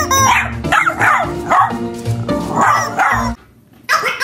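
A small terrier barking again and again, with background music underneath. The barking stops a little over three seconds in.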